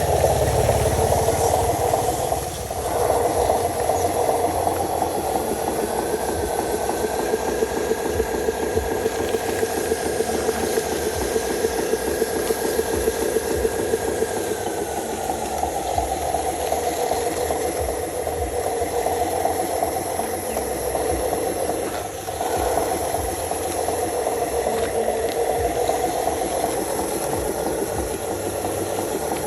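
Radio-controlled model truck's electric motor and gearbox whirring and rattling steadily as it drives. A faint whine rises about six seconds in, holds, and falls away about nine seconds later. The sound dips briefly twice.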